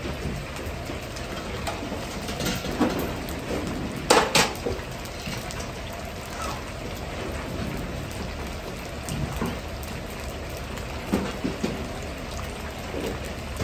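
Batter-coated chicken thigh pieces deep-frying in a large wok of hot oil, a steady rain-like sizzle. About four seconds in come two sharp clanks of metal kitchenware, the loudest sounds, and a few softer knocks follow near the end.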